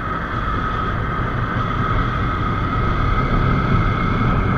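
Motorcycle riding along at a steady speed, its engine running under a constant rumble of road and riding noise.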